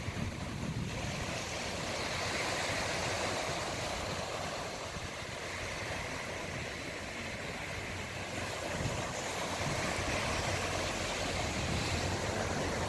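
Sea surf washing onto the shore: a steady hiss of breaking waves that slowly swells and eases.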